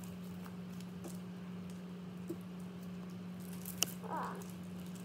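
Crunchy slime squishing and faintly crackling as it is squeezed and pulled apart by hand, with a sharp click and a short squelch near the end, over a steady low hum.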